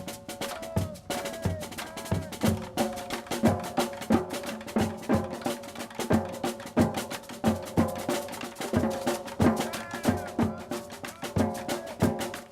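Percussive music: quick, closely spaced drum strikes with pitched notes running over them.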